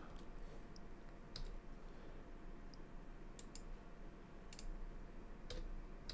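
Scattered soft clicks of a computer mouse and keyboard keys, about eight over six seconds, some in quick pairs, against faint room hiss.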